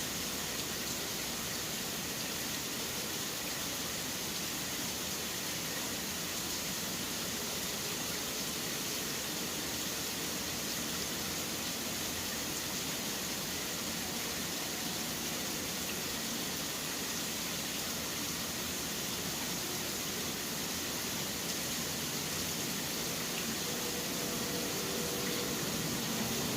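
Steady rain falling: an even, unbroken hiss at a constant level.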